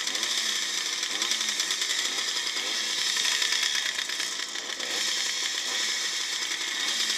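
Several vintage motocross bikes' small engines idling and being blipped at the starting gate, a dense fast buzzing with short rises and falls in revs.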